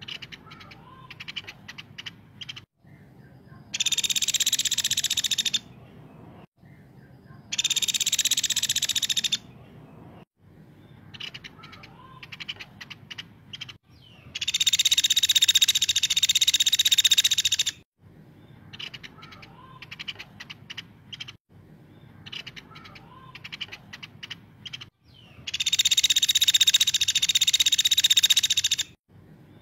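Caladi (small pygmy woodpecker) calling: four long, loud, rapid high-pitched trills of about two to four seconds each, with clusters of short sharp ticking notes between them.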